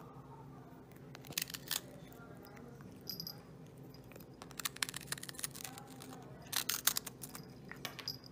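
A cat biting and crunching a cracker held in a hand: small groups of sharp crunching clicks, about a second and a half in, around five seconds in and loudest near seven seconds.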